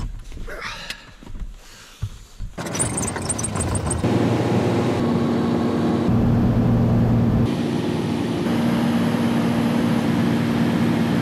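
Single-engine bush plane heard from inside the cabin: a few clicks and rustles at first, then the piston engine and propeller come in loud about two and a half seconds in and run steadily with a constant drone.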